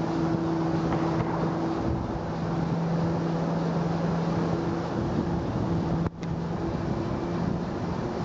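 A steady low mechanical hum, two held tones, over a constant rushing outdoor noise. The sound cuts out for an instant about six seconds in.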